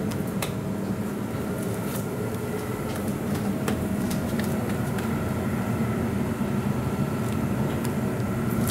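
Steady low rumble of a restaurant kitchen's lit gas range and ventilation, with a few light pats as paratha dough is slapped between the hands.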